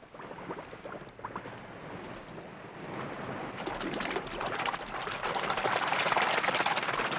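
Cartoon water sound effect: splashing and churning sea water that grows louder about three seconds in and is loudest near the end.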